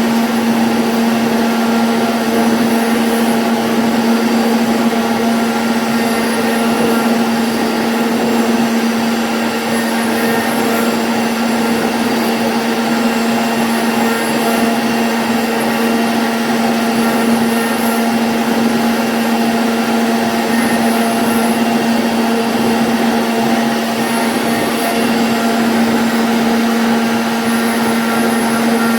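CNC router spindle running at a steady high speed with an even whine while cutting a 2D jali pattern in MDF. A brighter, hissier cutting sound comes and goes every few seconds.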